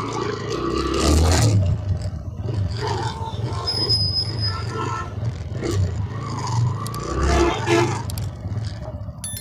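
TVS Raider 125's single-cylinder engine running, its low hum rising and falling unevenly, with scraping and clattering noises mixed in.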